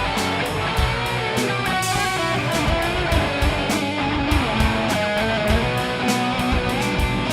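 Rock band playing an instrumental passage: electric guitars over a steady drum beat.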